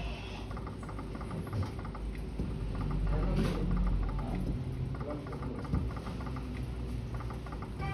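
Video slot machine spinning its reels, a quick run of soft even ticks over a low hum, with one sharp click about six seconds in.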